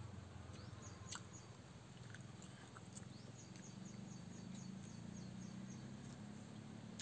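Quiet background with a low steady hum and a few faint clicks, and about halfway through a quick run of short, high chirps from a small animal, roughly three or four a second.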